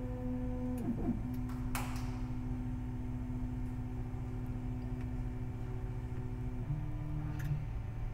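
Tiertime UP 3D printer initializing: its stepper motors run with a steady whine, shifting pitch about a second in and again near the end as the axes move to their home positions, with a few light clicks.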